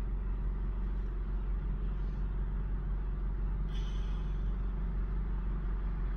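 Steady low rumble of a car's engine heard from inside the cabin, with no other sound standing out.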